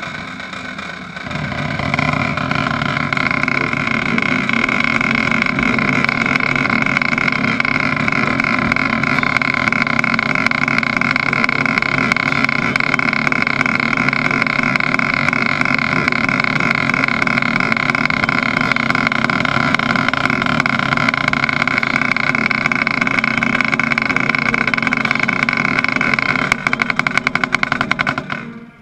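Snare drum roll played right at the microphone: a long, loud, sustained roll that swells a second or so in and holds steady, then breaks into rapid separate strokes for the last couple of seconds before stopping.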